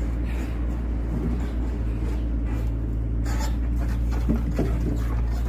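An engine running steadily with a low, even hum, with a couple of short knocks about three and four and a half seconds in.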